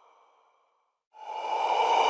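A breathy hiss with faint steady tones in it fades out, then after about a second of silence swells back in and keeps growing louder: a sound effect presented as a ghost's voice.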